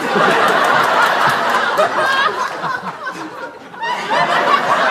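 A group of people laughing together, many overlapping chuckles and laughs. The laughter dies down briefly a little past the middle, then swells again.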